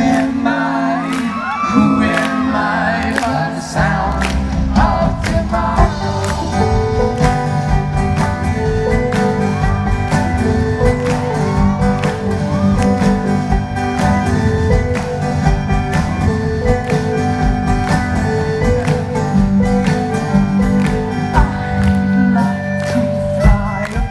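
Live band playing a song with a steady beat and a repeating pattern of notes.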